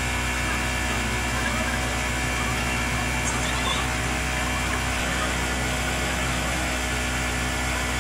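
A steady machine drone, like an engine running, holding an even level with a low hum and no change in pitch.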